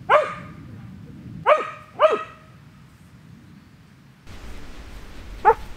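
A border collie barks at her owner walking out of sight: three sharp barks in the first couple of seconds, then one more near the end.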